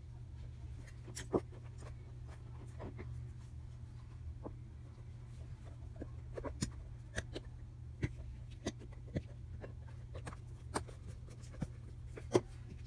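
Scattered light clicks and taps of a plastic spoon and a squeeze bottle against a plastic bowl as white school glue is squeezed in and stirred, over a steady low hum.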